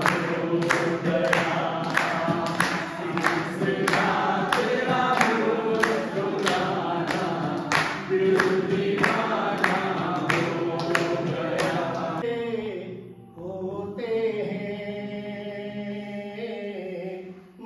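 A group of men singing together with steady rhythmic handclapping. About twelve seconds in the clapping and group singing stop, and after a short dip a single man's voice carries on alone in a chanting, sung style.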